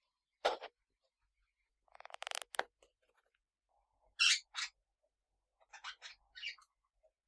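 Pet parrots calling in short, scratchy chirps with silences between: one sharp call near the start, a quick rattling series about two seconds in, two loud high chirps a little past four seconds, then a few softer ones.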